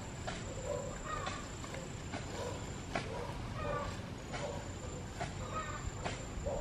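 Farm animals making short repeated calls, one about every three-quarters of a second, over a thin steady high-pitched tone.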